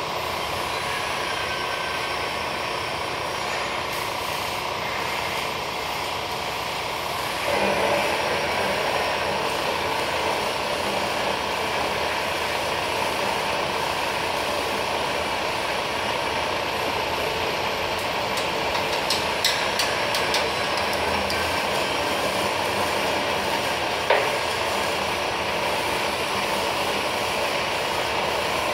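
Metal-cutting band saw running and cutting, a steady machine noise that grows a little louder about seven and a half seconds in, with one sharp click late on.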